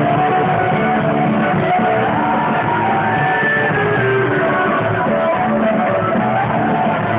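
Loud, steady dance music with plucked string instruments playing a melody, filling a crowded hall.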